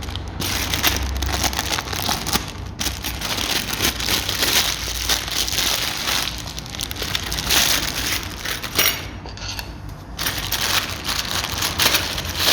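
Packaging of a small parts packet crinkling and rustling as it is handled and opened, with dense, irregular crackling throughout.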